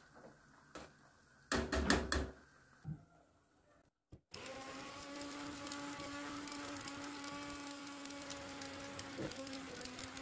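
A couple of clatters in the first two seconds, then, about four seconds in, an immersion (stick) blender starts abruptly and runs with a steady hum at one constant pitch, puréeing lentil soup in the pot.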